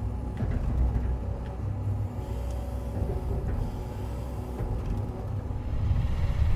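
Cat 323 hydraulic excavator's diesel engine running as the boom and arm are worked, heard from inside the cab: a steady low rumble with a faint steady whine on top.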